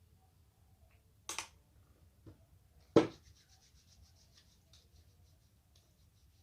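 Hands being rubbed together while being cleaned: faint, fast, scratchy strokes start just after a sharp knock about three seconds in and carry on to near the end. A short burst of noise comes about a second before the knock.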